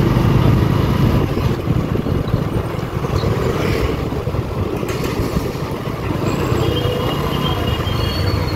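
Motorcycle running steadily as it rides along a busy street, amid the noise of other traffic.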